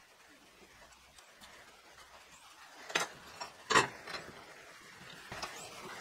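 A steel rule and marker knock against rebar clamped in a steel bench vise as it is measured and marked. Two sharp metallic clicks come about three seconds in, the second louder, then a few lighter taps.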